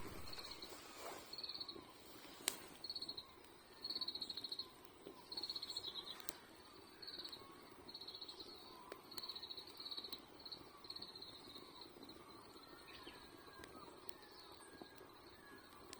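A songbird giving short, rapid high trills about once a second, which fade out after about twelve seconds, over a faint steady rustle. A single sharp pop comes about two and a half seconds in.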